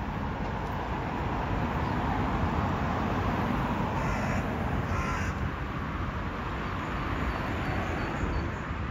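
Steady city traffic rumbling, with a crow cawing twice about four and five seconds in.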